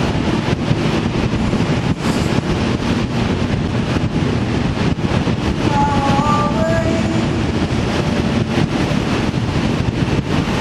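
Vehicle running on the road, a steady heavy rumble of engine and road noise with wind on the microphone.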